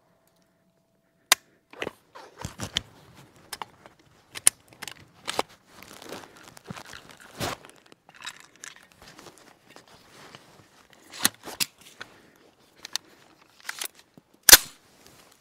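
Irregular clicks, rattles and knocks of a 9mm carbine's action being worked by hand to clear a round that failed to feed, hung up on the feed ramp. The loudest knock comes near the end.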